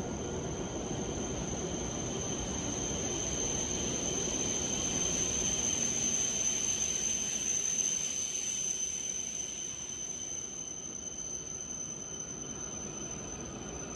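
E7 series Shinkansen train pulling into the platform and slowing. Its running noise swells to a peak about seven seconds in and then eases as it glides past. A high, steady squeal sounds over the rumble throughout.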